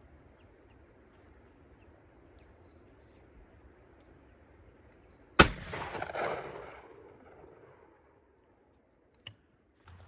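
A single gunshot about five seconds in, its echo dying away over about two seconds.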